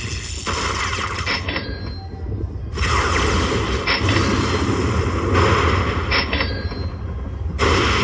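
Lightning Link Tiki Fire slot machine sound effects during a winning play: a steady low rumble under loud, noisy booming bursts that come back every two to three seconds.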